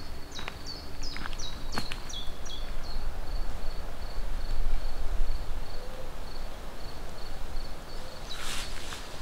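Summer woodland ambience: a run of high, quickly falling chirps in the first few seconds and a pulsing high insect trill, over a low steady rumble. Footsteps through grass and undergrowth begin near the end.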